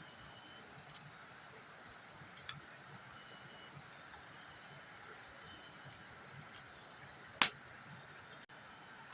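Steady high-pitched insect chorus, with one sharp knock about seven seconds in.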